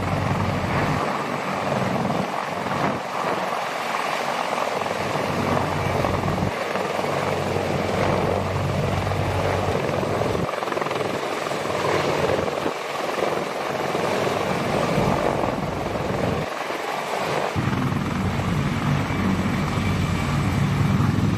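A CH-53E Super Stallion heavy-lift helicopter hovering low, its three turbine engines and main rotor running loudly and steadily while it holds a vehicle on a sling load. The deep rotor beat comes and goes several times as the rotor wash shifts.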